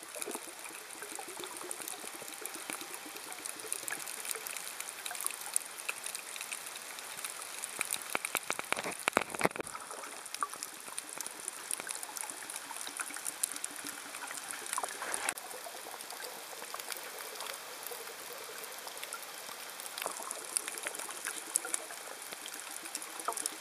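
Underwater sound of the sea during a night snorkel: a steady fizzing, crackling hiss of water, with louder rushes of water about 9 seconds in and again around 15 seconds.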